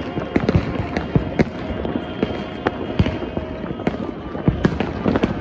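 Many fireworks and firecrackers going off across a city at once: irregular sharp bangs and pops, several a second, over a continuous din of more distant explosions.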